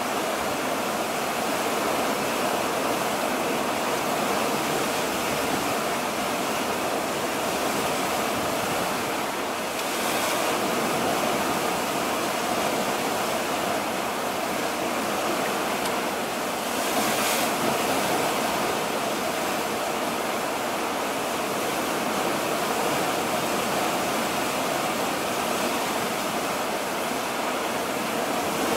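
Steady rushing of water along the hull of a moving ship, mixed with wind. It swells into a brief louder hiss twice, about ten and seventeen seconds in.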